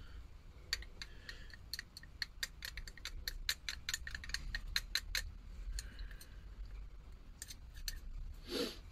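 A metal screwdriver shaft stirring paint in a small glass jar, clinking against the glass in a quick run of light ticks, about four or five a second, for several seconds, then a few scattered ticks. A brief voice sound comes near the end.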